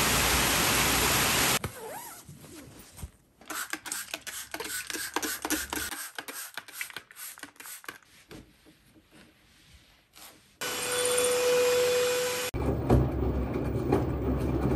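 Steady rain falling on pavement, cutting off suddenly after a second or two. Then quiet rubbing and light clicks of a cloth wiping a wooden vanity table. Near the end comes the steady hum and low rumble of a front-loading washing machine running with clothes tumbling in the drum.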